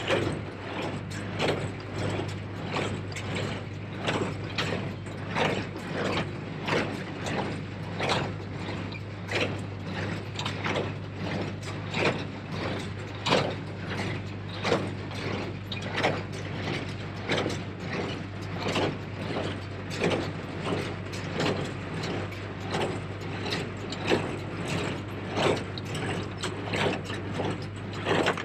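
New Holland 273 square baler running: its plunger and gearing clank in a steady rhythm, with a heavy stroke a little slower than once a second and lighter ratcheting clicks between, over the steady drone of the tractor's engine.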